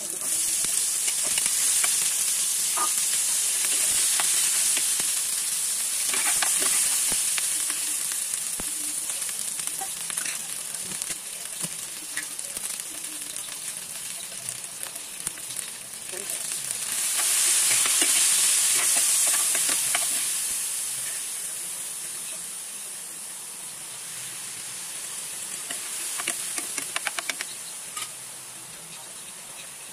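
Chicken feet sizzling in a frying pan of hot oil with sautéed garlic and onion, a steady hiss that swells again about halfway through. Scattered clicks and scrapes of a utensil stirring the pan, with a quick run of clicks near the end.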